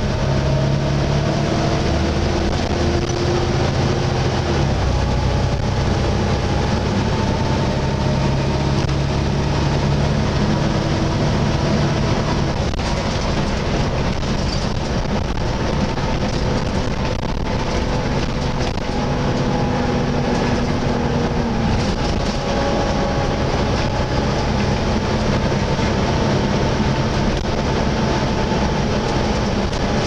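Volvo B7TL double-decker bus on the move, heard from the upper deck: its diesel engine and driveline run with several pitched whines that slide up and down as the speed changes, over a loud, steady whoosh from the engine cooling fan, the "mad hoover" sound.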